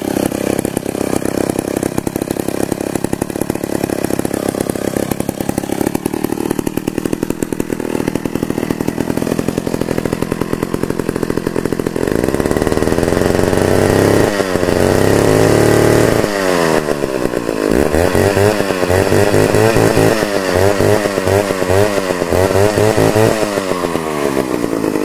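Vintage McCulloch 140 two-stroke chainsaw running after being revived: it idles steadily for about twelve seconds, then revs up and holds high for a couple of seconds, drops back, and is blipped up and down repeatedly.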